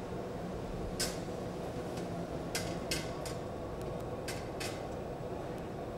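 Steady hum of a glassblowing hot shop's furnace and ventilation, with about six sharp light clicks and taps of hand tools against glass and metal spread through it.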